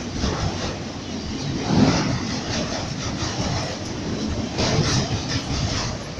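Freight train running past: a steady rumbling noise of locomotives and rolling cars on the rails, swelling briefly about two seconds in and again near five seconds, with no horn sounding.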